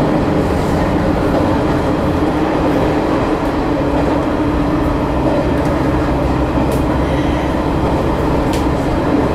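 Sanriku Railway 36-100 series diesel railcar running along the line, heard from inside at the front: a steady, loud drone of the diesel engine and the wheels on the rails. A couple of faint clicks come in the second half.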